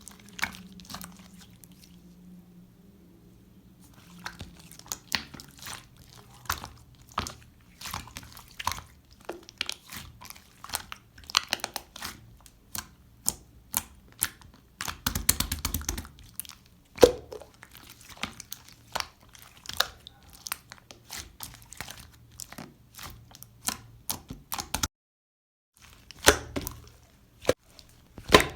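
Pink clear slime being squished and pressed by hand, giving a run of sharp pops and clicks from trapped air, with a dense flurry about halfway and a brief silence near the end.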